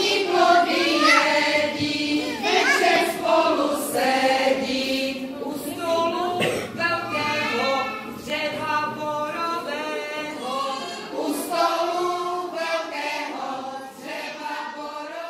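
A group of children singing a song together, the singing growing quieter near the end.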